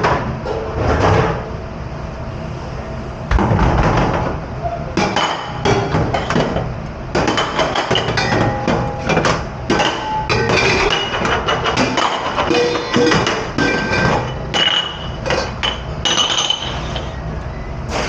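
Dishes, glasses and utensils clattering and clinking against one another in a commercial dish pit, with short ringing tones from struck crockery, over a steady low rumble.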